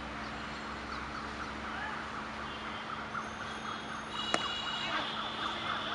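Background of steady city hum with many short chirps. About four seconds in comes a single sharp crack of a baseball bat hitting a pitched ball, followed by a brief high ringing tone.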